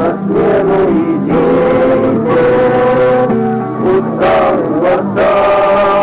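A group of voices singing a slow religious chant together, with long held notes over a steady low tone.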